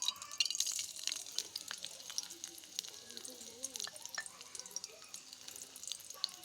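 Chopped onions and green chillies frying in hot oil in a pan, with a steady crackling and spitting of many small pops.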